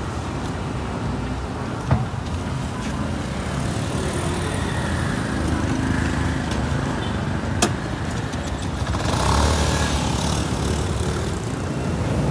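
Steady hum of road traffic engines, with a sharp click about two seconds in and another about seven and a half seconds in, and a louder swell of engine noise about nine seconds in.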